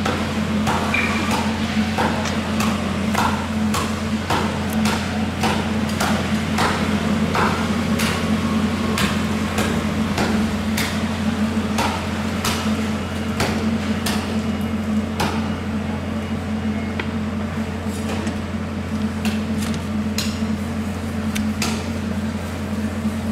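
Repeated sharp knocks of a long knife blade striking a plastic cutting board while cutting fish loins, irregular at about one or two a second, over a steady low hum.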